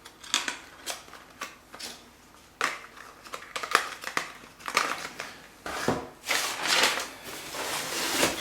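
Packaging and items being handled and unwrapped: a series of short clicks and rustling, crinkling bursts, with a longer stretch of rustling near the end.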